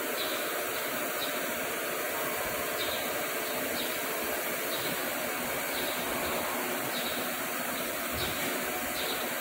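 Steady hiss-like machine noise, with a faint tick repeating about once a second.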